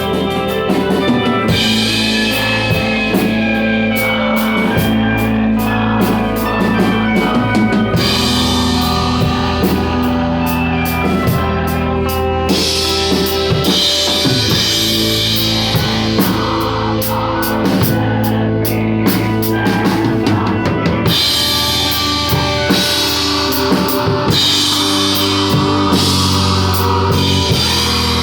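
Rock music played on a drum kit with bass drum and guitars, with no singing.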